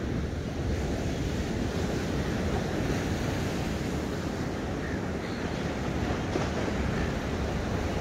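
Ocean surf breaking and washing onto a beach in a steady rush, with wind rumbling on the microphone.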